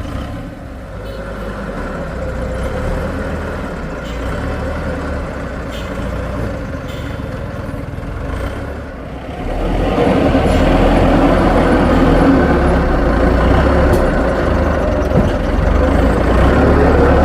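Heavy construction machine's diesel engine running, rising to a louder, harder-working sound about ten seconds in and holding there.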